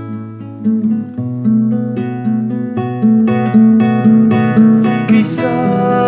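Nylon-string classical guitar played solo, picked chord notes that grow louder into strummed chords about halfway through.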